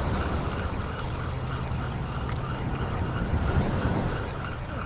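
Steady low rumble and hiss of wind on the microphone at the shoreline, with a few faint ticks.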